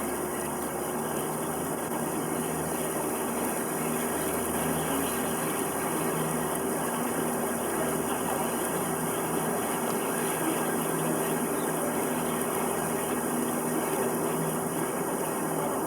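River cruise boat's engine running steadily, an even mechanical drone with a low hum.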